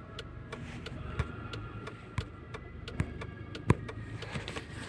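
Opel Zafira driving on a rough road, heard inside the car: a steady low rumble with irregular sharp knocks about a second apart, the loudest one about three and a half seconds in. The knocks are the kind of front-suspension knock that is still there after new struts, which the owner says is still somewhere in the car.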